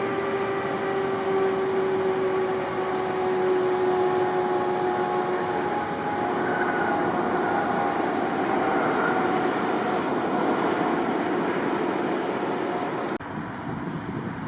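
Jet airliner passing close, a loud steady rush of engine noise with whining tones that slowly fall in pitch. The sound drops suddenly to a quieter rush near the end.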